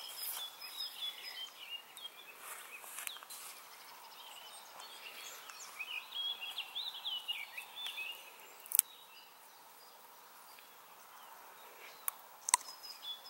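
Small birds chirping and singing over faint outdoor background noise. A single sharp click sounds about nine seconds in, and two smaller clicks come near the end.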